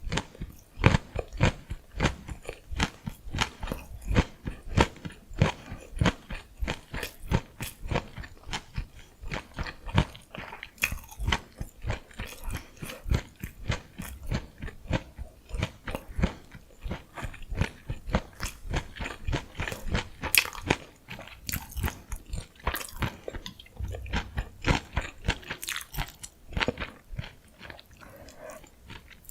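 Close-miked chewing of gimbap: a steady run of crunchy bites and chews, about two a second, tapering off near the end.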